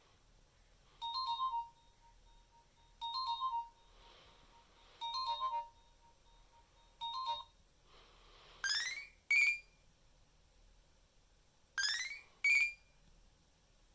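Nokia mobile phone playing electronic ringtones: four short beeps about two seconds apart, then two pairs of quick rising chirps.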